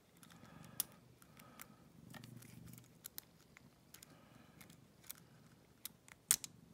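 Light metallic clicks and scrapes at irregular intervals as a warded pick is worked in an old Seal warded lock, trying to turn the ward mechanism without success.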